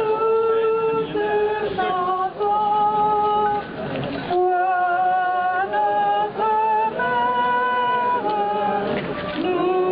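Unaccompanied voices singing a slow processional hymn together in long held notes that step from one pitch to the next.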